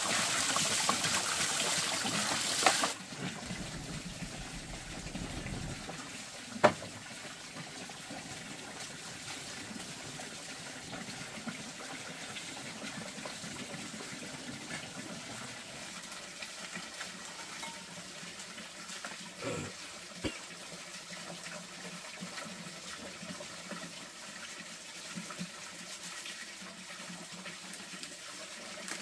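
Water running, loud for the first three seconds and then dropping suddenly to a softer steady flow, with a single sharp knock a few seconds later.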